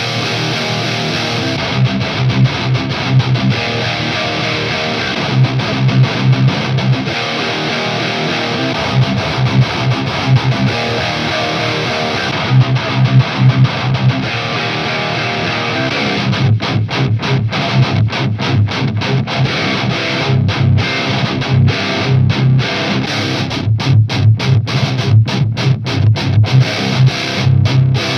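High-gain distorted electric guitar (ESP LTD NW-44 with a Bare Knuckle Aftermath pickup) playing a heavy metal rhythm riff on its own. The tone of one amp head after another is heard back to back through the same Mesa 2x12 V30 cabinet impulse response, among them a Mesa Boogie Dual Rectifier and a Randall Diavlo RD100. From about sixteen seconds in the riff turns to tight, staccato chugs with short stops between them.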